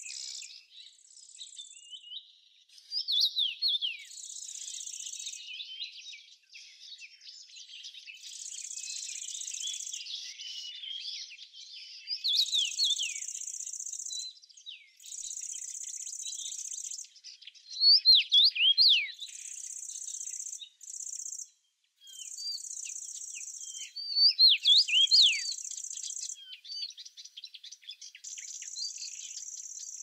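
Small songbirds chirping in short clusters of quick, downward-sweeping notes, over a high insect trill that starts and stops every few seconds.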